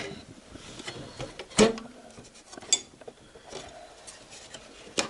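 Plastic keyboard parts of a partly dismantled chord organ being handled: scattered light clicks and rubbing, with one sharper click about a second and a half in.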